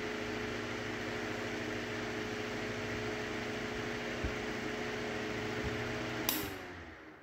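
Vintage Dominion oscillating desk fan running steadily, its motor humming under the rush of air from the blades. About six seconds in it is switched off with a sharp click, and the motor hum and air noise wind down, falling in pitch.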